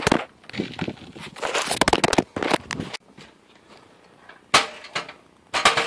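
Camera handling noise: crackling rustle and rubbing on the microphone in several bursts while the camera is picked up and moved. It then goes quieter, with a sharp click about four and a half seconds in and another short rustle near the end.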